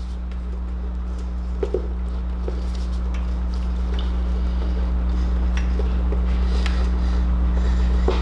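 Steady low hum, slowly getting louder, with scattered light taps and rubbing as rubber air box boots are worked by hand onto a motorcycle's carburetors.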